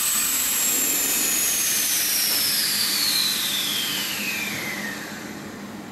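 Compressed air hissing through a pneumatic screen stretching machine, with a high whistle that slides steadily down in pitch. The hiss eases off about five seconds in.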